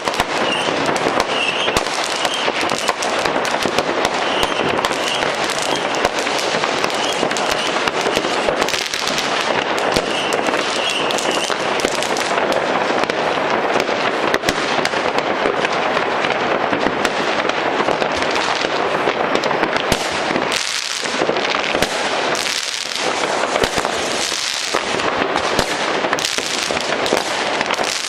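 Fireworks and firecrackers going off all over a city, a dense, unbroken crackle of countless pops and bangs blending into a steady wash of noise.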